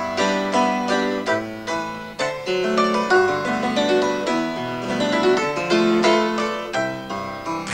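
Lively piano music played in quick, separate notes.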